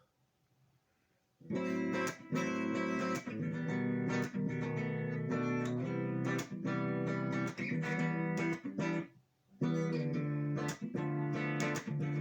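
Guitar being strummed: chords with sharp, quick strokes, starting about a second and a half in. The playing stops briefly near the end, then starts again.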